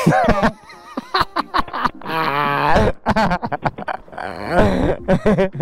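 A man laughing loudly in wavering bursts, with a drawn-out voiced laugh in the middle.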